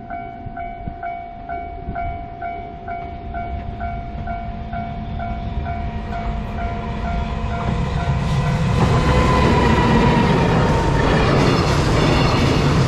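Japanese level-crossing warning bell ringing in steady chimes, about three a second. About eight seconds in, a freight train hauled by an EF210 electric locomotive comes through the crossing, and its rumble and wheel noise grow loud and drown out the bell.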